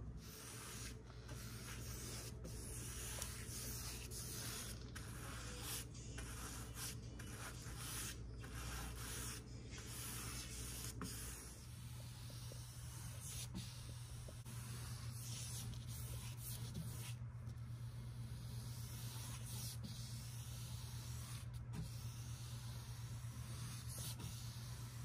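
Paintbrush bristles brushing paint onto a painted wall, a run of strokes with short gaps between them, over a steady low hum.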